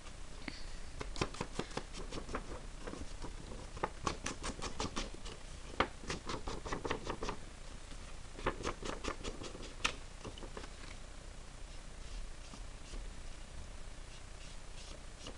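A Distress Ink pad dabbed and rubbed along the edges and folds of a sheet of patterned paper: bursts of quick, light taps and scratches that thin out after about ten seconds.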